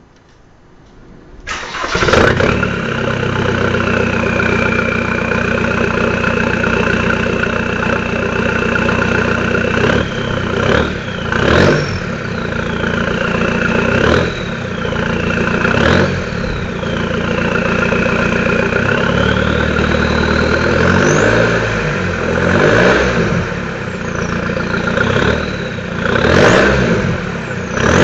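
Seat Ibiza 1.9 TDI four-cylinder turbodiesel, on a straight-through exhaust, starting about a second and a half in and idling steadily. From about ten seconds on it is revved in a series of blips, each rising and falling.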